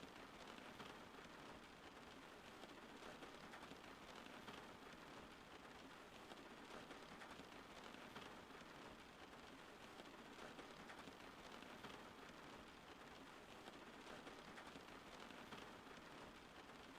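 Soft, steady rain falling, an even hiss of many drops with no break or change.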